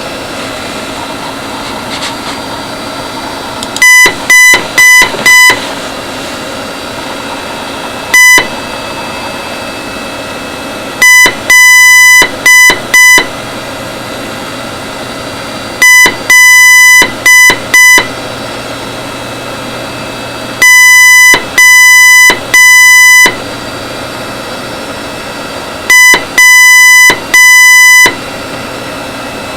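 Morse code beeps from a web-page Morse player spelling "HELLO W…" at a slow, widely spaced speed. Heard in order: four short beeps, one short, short-long-short-short twice, three long, then after a longer gap short-long-long. The beep is loud and clipped, over a steady hiss between the groups.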